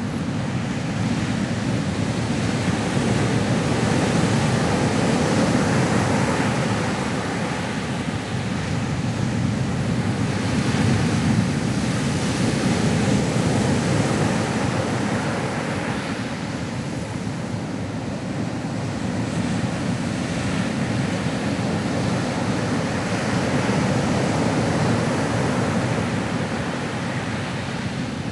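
Ocean waves breaking and washing on a shore, a continuous surf that swells and eases every several seconds.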